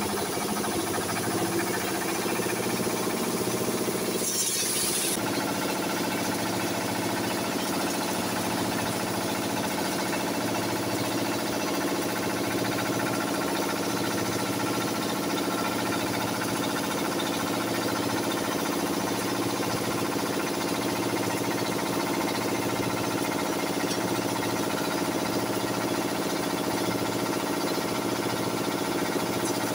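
Village posho mill running: a small stationary engine drives a maize grinding mill with a steady mechanical drone and a regular pulse. A brief hiss sounds about four seconds in.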